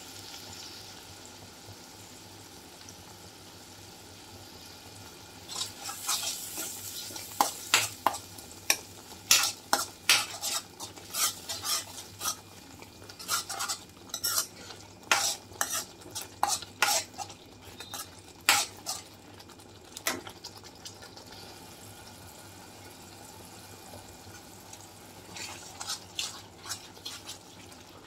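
Metal spoon scraping and clinking against a frying pan as a spiced onion-tomato masala is stirred while it fries. Under it is a steady frying sizzle of the masala in oil. The quick, irregular stirring strokes begin about five seconds in, pause for a few seconds after the middle, and start again near the end.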